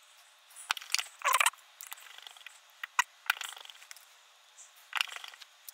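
Small clicks and scratchy scrapes of a precision screwdriver turning tiny screws into a Samsung Galaxy S20's internal cover. They come as a few short bursts a second or two apart, with one sharp click about three seconds in.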